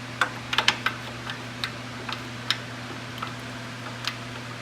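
Irregular metal clicks and taps of an 18 mm socket being fitted and wiggled on a motorcycle transmission cover bolt. It is loose on the bolt head, with a lot of play, clustered in the first second and sparser after. A steady low hum runs underneath.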